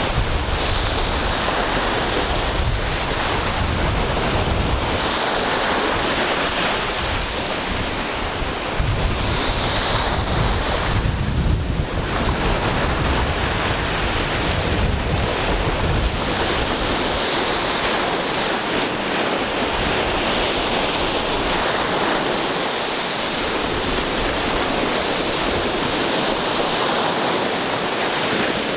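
Ocean waves breaking and washing on the shore as continuous surf that swells and eases. Wind buffets the microphone as a gusty low rumble.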